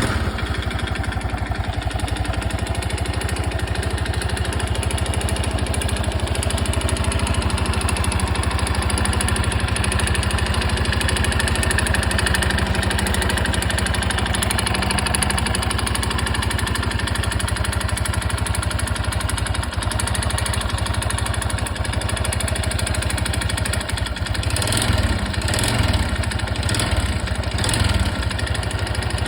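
Honda Super Cub 110 (JA07) single-cylinder four-stroke engine idling just after starting, with an abnormal noise from the engine that the owner links to the crankshaft. A few brief surges come near the end.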